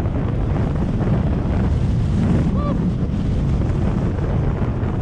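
Wind buffeting the microphone as a skier descends, a steady loud rushing noise heaviest in the low end. A brief pitched sound is heard once about halfway through.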